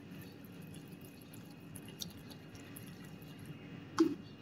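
Wire whisk beating gram-flour (besan) batter in a plastic bowl: faint wet squishing with a few light ticks, and a short louder knock near the end.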